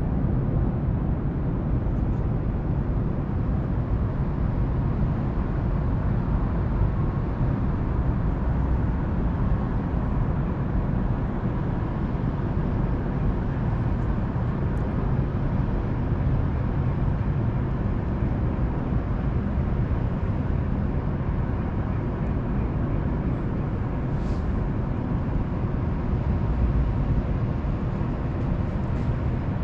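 Steady low rumble of distant city traffic heard from high up, an even wash of noise with no single vehicle or event standing out.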